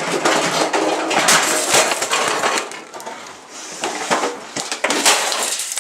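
Kitchenware crashing and clattering as it is thrown and smashed about a kitchen: a rapid run of hard impacts of dishes, pans and utensils, easing briefly in the middle before more crashes.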